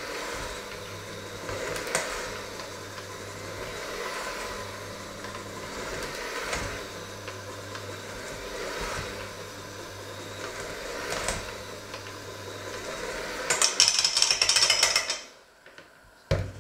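Electric hand mixer with dough hooks running in a stainless steel bowl of dough, a steady motor hum with the hooks scraping and knocking against the bowl every second or two. Near the end comes a loud rattling, then the motor cuts off suddenly and a single knock follows.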